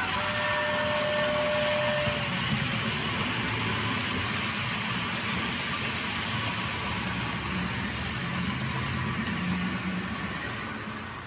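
Sound decoder of a Bachmann OO-gauge Class 47 model locomotive playing a Class 47 diesel engine sound as it hauls a rake of coaches past, mixed with the rattle of the model train's wheels on the track. A brief high whine sounds in the first two seconds, and the sound fades near the end as the train moves away.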